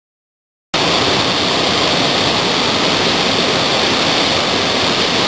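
Loud, steady rush of a river waterfall crashing into a gorge, starting abruptly under a second in.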